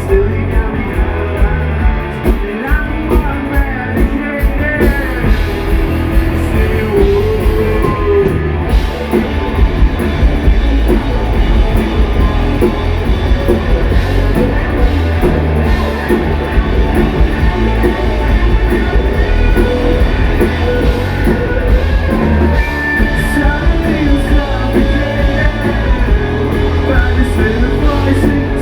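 Live rock band playing at full volume: electric guitars and a drum kit with a steady beat, heavy bass, and possibly a sung line over it, as recorded from the audience.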